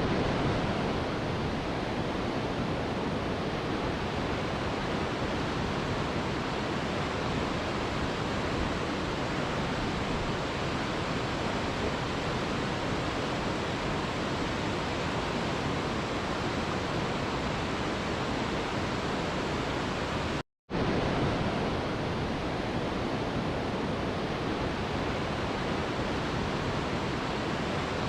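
Waterfall rushing in a steady, even roar of falling water. It cuts out completely for a split second about twenty seconds in, then resumes unchanged.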